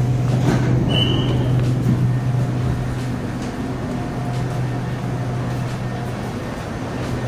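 Inside an SRT Red Line Hitachi AT100 electric train carriage while it runs: a steady low hum from the traction equipment over wheel and rail noise, with a brief high tone about a second in.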